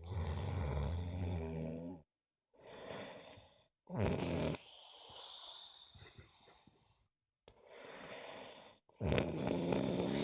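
A sleeping person snoring loudly. Three heavy, pulsing snores come about four to five seconds apart, each followed by a quieter breath.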